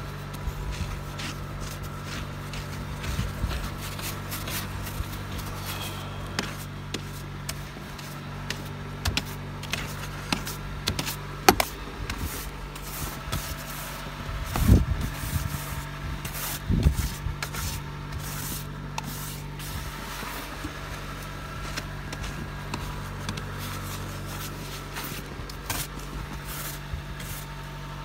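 Snow brush sweeping snow off a vehicle's windshield, mirror and windows in irregular scratchy strokes, with a few louder knocks in the middle, over the steady low hum of the vehicle's engine idling.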